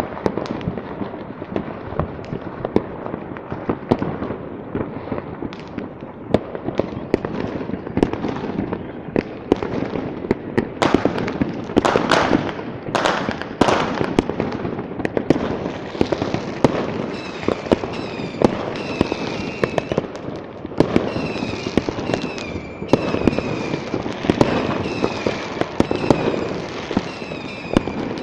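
Many fireworks and firecrackers going off at once, a dense, irregular crackle of bangs near and far, loudest around twelve seconds in. From about halfway, a wavering high tone repeats over the bangs.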